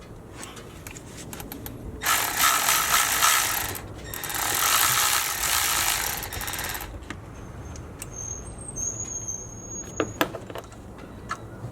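Ratchet wrench clicking in two runs of a few seconds each while the idler pulley bolt is turned, followed by a few light metal clicks near the end.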